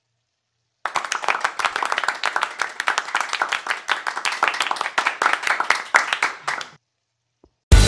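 Applause, many hands clapping fast and irregularly, cutting in abruptly about a second in and stopping abruptly near the end. Loud rock music starts right at the end.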